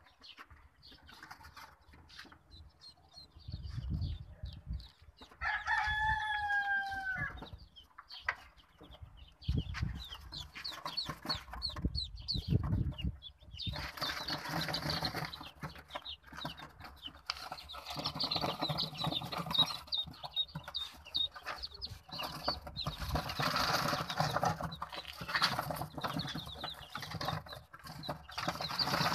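Young ducklings and chicks peeping, sparse at first and becoming a dense chorus of short high cheeps about halfway through. There are thumps and rustles of handling in the first half, and one longer drawn-out call about six seconds in.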